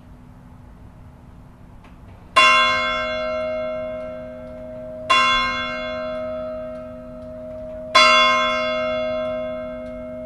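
One church bell of Neskirkja struck three times, a little under three seconds apart. Each stroke rings on and slowly fades, and the bell's low hum keeps sounding between strokes.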